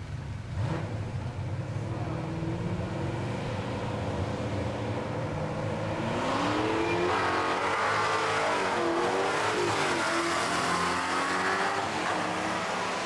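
Two drag-racing muscle cars at the starting line, engines running, then launching about six seconds in and accelerating hard down the strip. Their engine note climbs and drops repeatedly as they run, and fades near the end.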